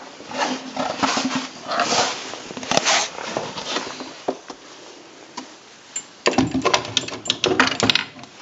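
1930s Smith Premier portable manual typewriter being worked by hand: a run of uneven clicks and clacks for about four seconds, a lull, then a fast dense clatter of clicks near the end.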